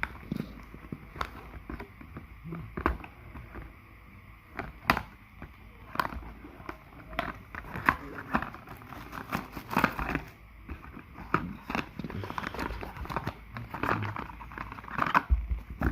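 Product packaging being opened by hand to get a USB-C cable out: irregular rustling and crinkling with many sharp clicks and snaps.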